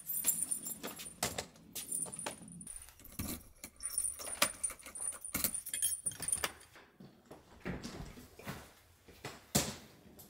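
A bunch of keys jangling and clicking while a wooden front door is unlocked and opened by its handle. The loudest sound is a single sharp clack near the end.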